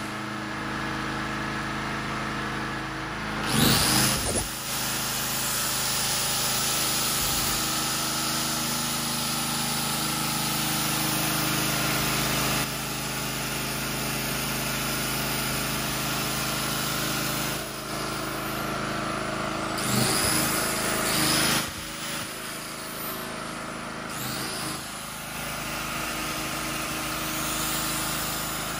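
A portable 3000 W generator's small petrol engine running steadily. A louder burst of noise comes twice, about four seconds in and again around twenty seconds in.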